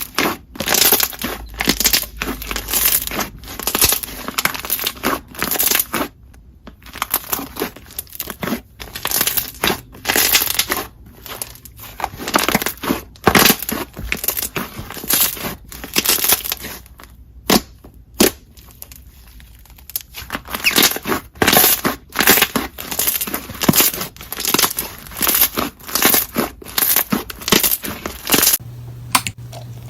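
Thick, glossy slime being squeezed and poked by hand: a dense, irregular run of sharp crackling clicks and pops.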